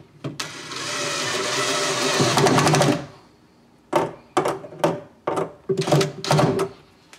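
DeWalt cordless drill-driver driving a screw through a metal L-bracket into a chipboard corner post: one run of about two and a half seconds that grows louder as the screw bites, then a series of short bursts as the screw is driven home.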